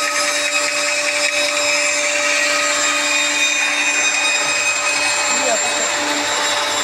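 Band saw running steadily and cutting a curved line through a knotty softwood board, its motor hum and blade noise mixed with the even rush of a dust extractor.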